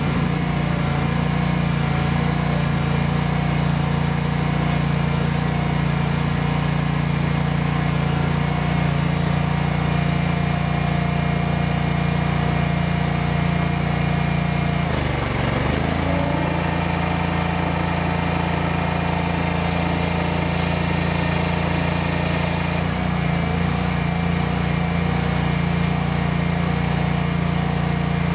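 Barreto 30SG stump grinder's 31-horsepower gas engine running steadily. About halfway through, the engine note dips briefly and recovers, then a high whine from the hydraulic drive joins for about six seconds as the tracked machine is moved up to the stump.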